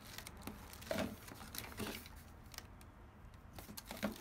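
Plastic packaging bags crinkling and rustling as parts are handled and lifted out of a cardboard box: a few separate short rustles, the loudest about a second in and near the end.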